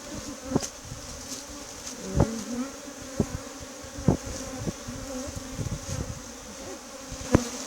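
Steady buzzing hum of a mass of honey bees from an opened hive, Africanized bees (Apis mellifera scutellata), with several sharp knocks of hive equipment, the loudest one near the end.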